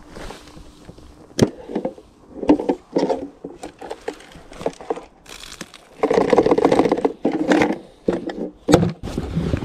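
A small plastic cool box being picked up, carried and opened: knocks and sharp plastic clicks of its lid and handle, with dry leaf litter rustling and crunching underfoot. The rustling is densest about six to seven seconds in.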